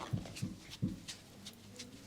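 Hands patting and slapping the head during a massage: three short, dull strokes in the first second, with hair rustling under the fingers.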